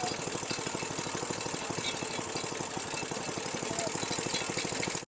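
Small petrol engine driving a sugarcane juice crusher, running steadily with a rapid, even firing beat.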